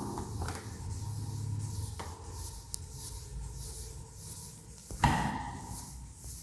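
A cloth duster wiping chalk off a chalkboard in repeated strokes, a soft rubbing hiss. A thump about five seconds in is the loudest moment.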